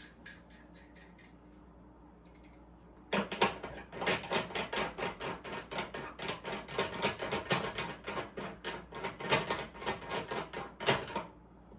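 Bushing resizing die being screwed by hand into a single-stage reloading press: quick, sharp metal clicks about five a second, starting about three seconds in after a few faint ticks and stopping near the end.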